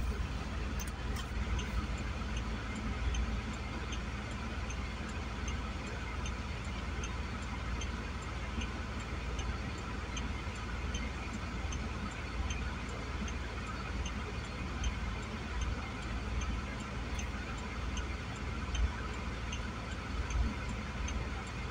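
Long freight train rolling past with a steady low rumble and rail noise. A light, regular ticking runs through it, roughly once every 0.7 s.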